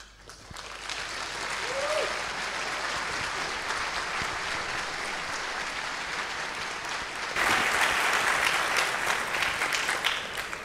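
Audience applause in a lecture hall, building up over the first couple of seconds, growing louder about seven seconds in, then dying away near the end.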